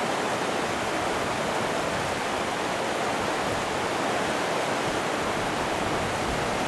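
River rapids rushing steadily as whitewater pours over a steep drop.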